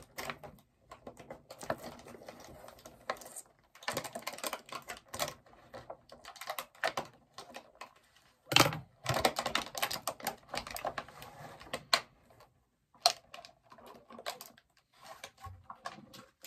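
Cardboard box being cut and pulled open with scissors and its packing handled: irregular rustling, scraping and small clicks, with a sharper knock about eight and a half seconds in.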